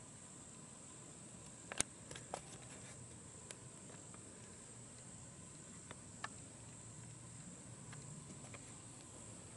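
Steady high-pitched insect buzzing in the woods, with a few sharp little clicks, the loudest about two seconds in.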